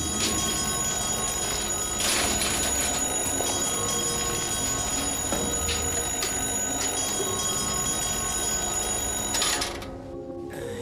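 A continuous bell-like ringing that gets louder about two seconds in and cuts off suddenly near the end.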